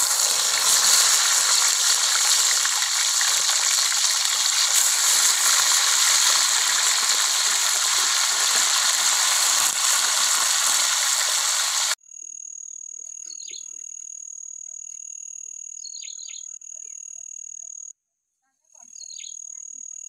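Whole fish frying in hot oil in a wok over a wood fire: loud, steady sizzling and crackling that cuts off suddenly about twelve seconds in. After that, a much quieter, steady high-pitched drone of calling animals with a few short chirps, broken by a brief silence near the end.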